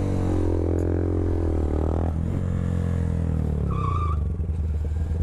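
Honda Grom's 125 cc single-cylinder engine under way, heard from the rider's seat. Its revs climb, then the note drops about two seconds in and falls away to a low, steady run.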